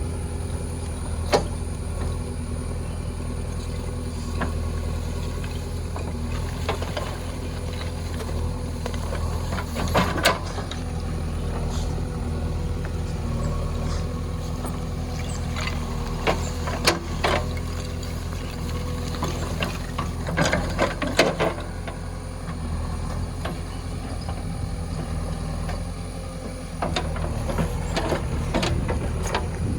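JCB backhoe loader's diesel engine running steadily under work, with scattered sharp clanks and knocks, clustered about ten seconds in and again around twenty seconds in.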